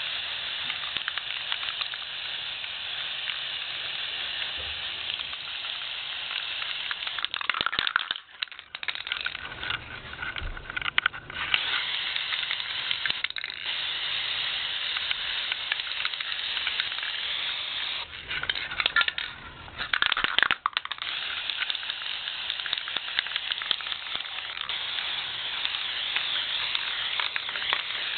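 Aerosol can of gold spray paint spraying in long, steady hissing bursts, with short breaks about eight seconds in and again about twenty seconds in.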